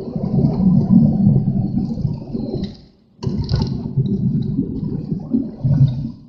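Strong wind buffeting the microphone in two rough, rumbling gusts, with a short lull about three seconds in.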